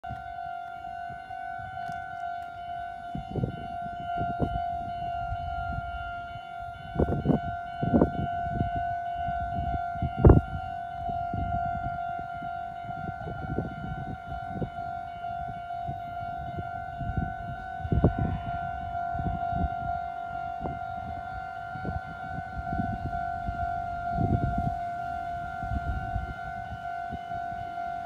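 Railway level-crossing warning alarm sounding continuously, a steady high electronic tone, the signal that a train is approaching. Irregular low thumps sound under it.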